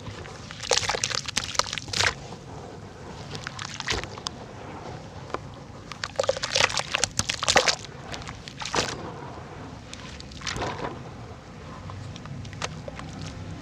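Cylinders of pressed red dirt crumbling in water: clusters of crackling and breaking with sloshing water, coming in about five bursts a couple of seconds apart.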